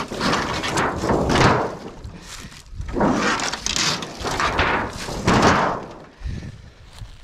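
Rusty corrugated sheet-metal roofing being lifted and flipped by hand, the sheets scraping and rattling against one another in several separate bouts.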